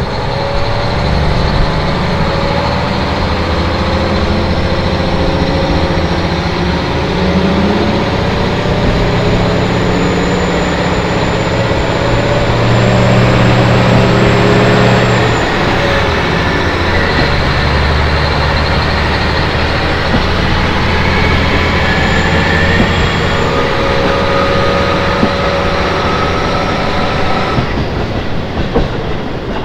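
KiHa 40 diesel railcar's engine working under power, heard from inside the car over the rush of wheels on rail. The engine note climbs, drops back about halfway through, then builds again, with a high whine rising and falling along with it.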